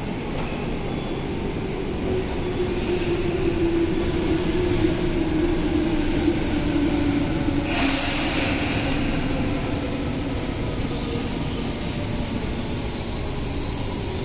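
Tobu 10030-series electric train standing at a station platform and then starting to pull away: a low hum slowly falls in pitch, a sudden hiss comes about eight seconds in, and the train is moving off near the end.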